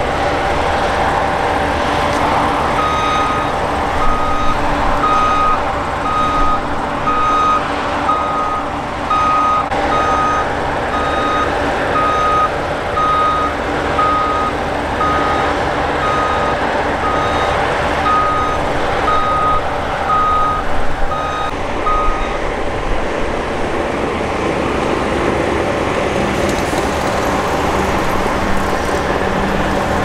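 Combine harvesters and a tractor running steadily at work, with a reversing alarm beeping about once a second until it stops about 22 seconds in.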